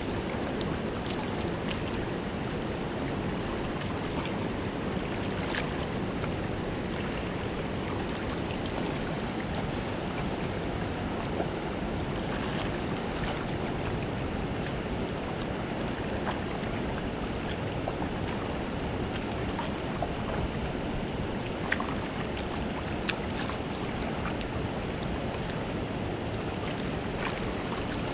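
Steady rush of river water flowing below a dam spillway, with a few faint, light clicks here and there.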